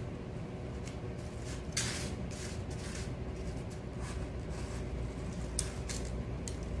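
A Devon Rex kitten raking granular cat litter in an aluminium foil pan: a few short, scratchy rustles, the loudest about two seconds in, over a steady low background hum.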